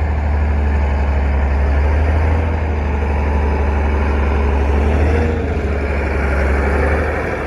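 Heavy engine of road-construction machinery running steadily at idle, a loud deep hum with a slight change about five seconds in.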